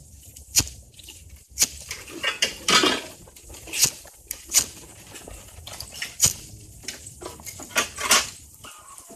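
Spoons clinking and scraping against bowls, with short slurps of noodles between them. The strokes are irregular, about one every second.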